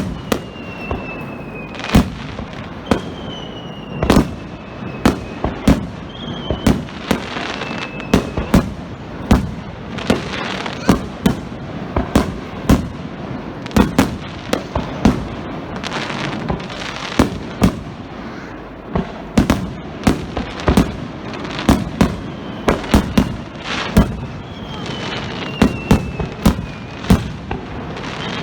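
Starmine fireworks display: rapid volleys of aerial shells bursting, loud bangs coming several a second over a steady crackle. Now and then a whistling shell sounds, its whistle falling in pitch over about a second.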